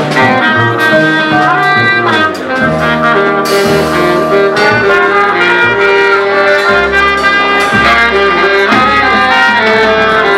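A live band playing loudly, horns holding long notes over bass and drums.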